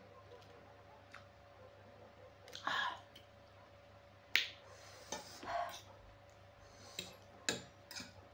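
Close-miked eating of spicy instant noodles: scattered sharp, wet mouth clicks and smacks, about half a dozen over several seconds, over a faint steady hum.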